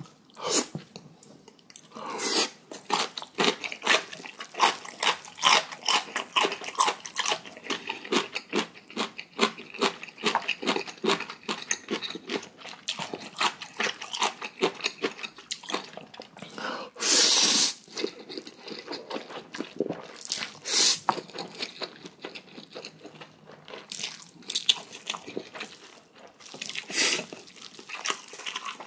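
Close-miked eating sounds of a person eating thick-sauced instant ramen noodles: steady wet chewing and crunching, broken by a few loud noodle slurps. The loudest slurp comes about seventeen seconds in, with others near twenty-one and twenty-seven seconds.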